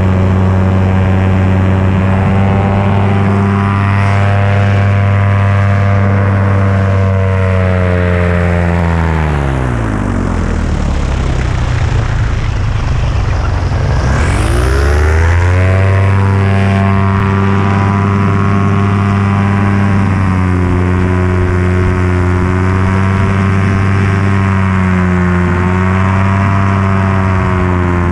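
Paramotor engine and propeller running steadily at high throttle. About nine seconds in it is throttled back and the pitch sinks to a low idle for several seconds. Around fifteen seconds it is opened up again, and the pitch rises back to a steady run.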